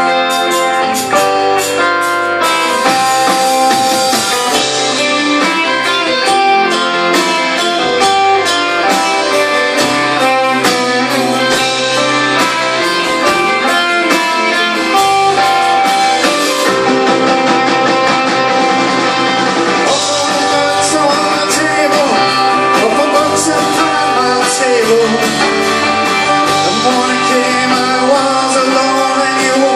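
A rock band playing live in a concert hall: electric and acoustic guitars over drums, steady and loud, with singing in parts.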